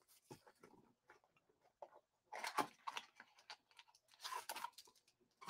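Faint rustling and crinkling of a trading-card box's packaging being handled and opened, with scattered soft ticks and two short crackly bursts, about two seconds in and again near four and a half seconds.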